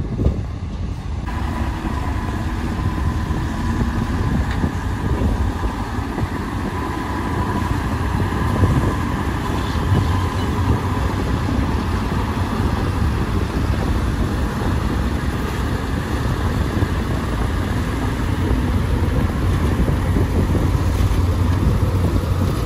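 Diesel engines of hydraulic excavators and dump trucks running together in a steady low rumble, with a faint steady whine above it.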